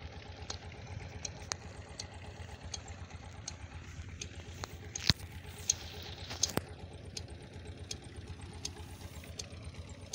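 An engine runs steadily with a low, evenly pulsing rumble. A few sharp clicks stand out about halfway through.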